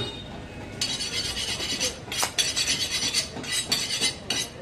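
Light metallic clinking and scraping of butcher's metal tools and utensils, with a few sharper clicks in the second half.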